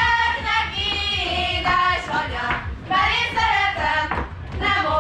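High voices singing a melody over a steady low pulse.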